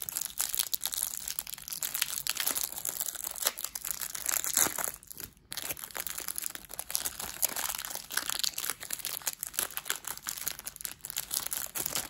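Thin clear plastic wrapper of a small pack of trading cards crinkling and crackling as fingers pull it open, with a brief pause about five seconds in.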